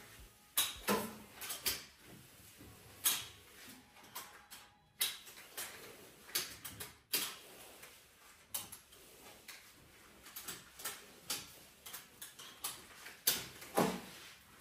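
A flat microfibre mop being pushed and turned over a hard wood-effect floor: irregular clacks and knocks of the mop frame and handle, mixed with steps in slide sandals.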